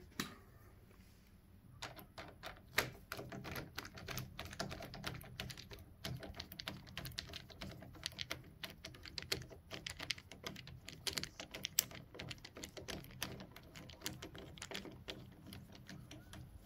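A screwdriver driving the lock cylinder's retaining screw back into the edge of the door. It makes a long run of quick, irregular clicks and taps that starts about two seconds in.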